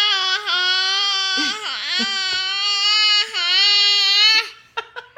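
A nine-month-old baby's long, loud, high-pitched wail, held almost level in pitch, broken briefly about half a second in, dipping and breaking around two seconds in, and again a little past three seconds, then stopping about four and a half seconds in.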